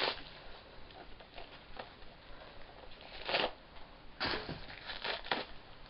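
Packing material being handled while unpacking a box: rustling and crinkling of wrapping and cardboard in a few short bursts, with faint crackles between them.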